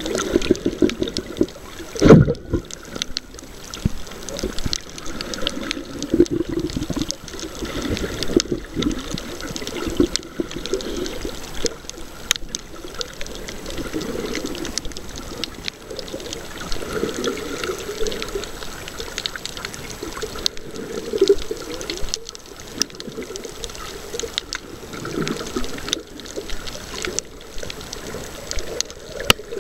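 Water gurgling and sloshing around a snorkeler's camera at or under the surface, with many small irregular clicks. A sharp knock comes about two seconds in.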